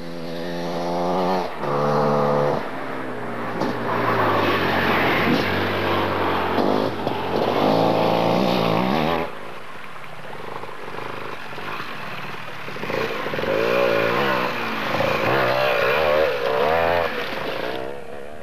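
KTM enduro motorcycle engine revving up and down under hard riding over rough going. The engine note wavers constantly, eases off about halfway through, then picks up and revs hard again until near the end.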